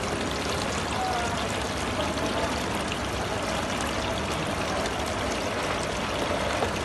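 Decorative artificial-rock fountain, water falling steadily from its spouts into small pools with a continuous splashing trickle.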